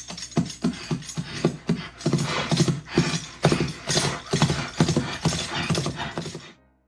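Rhythmic clip-clop of hooves, about three knocks a second, cutting off abruptly near the end.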